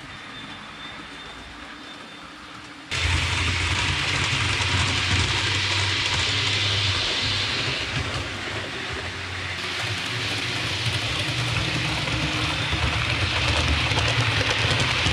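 Hornby OO gauge model Advanced Passenger Train running on the layout track, its wheels rolling over the rails with the motor humming. It is quiet at first, jumps suddenly louder about three seconds in, and swells again near the end as the train passes close.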